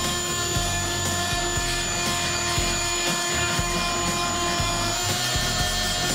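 Fein MultiMaster oscillating tool running under load against a wooden stair-rail molding: a steady high whine from the blade oscillating about 350 times a second, over an uneven rough grating as the attachment bites into the material.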